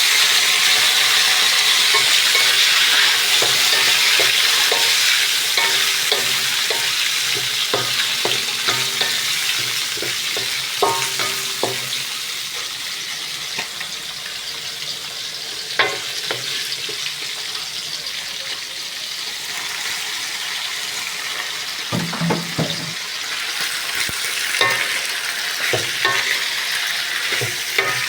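Food frying in hot oil in a pan, a steady sizzle, with a spatula or ladle stirring and scraping against the pan in short clusters of knocks.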